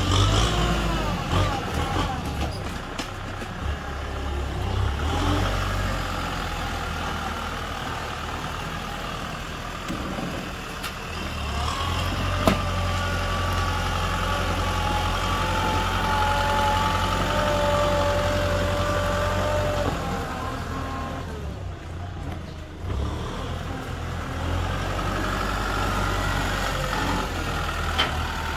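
Kubota M6040 tractor's diesel engine running as the tractor drives slowly over dirt, its note shifting as the load changes. A thin high whine holds for several seconds in the middle, and there is one sharp knock about twelve seconds in.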